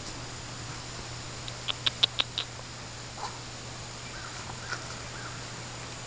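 Holstein calf sucking and mouthing a person's fingers: a quick run of about six clicks about two seconds in, over a steady low hum.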